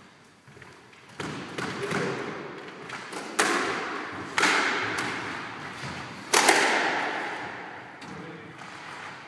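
Squash ball struck by rackets and smacking off the court walls: several sharp hits at uneven spacing, each trailing off in the court's echo, the loudest about two thirds through.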